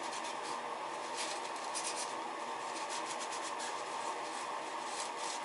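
Faint rubbing and scratching of a paper towel wiped over balsa-wood elevator frames to take off excess thin CA glue, over a steady background hum.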